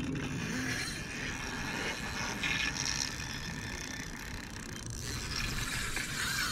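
Spinning reel being cranked by hand, its gears running as line is wound in.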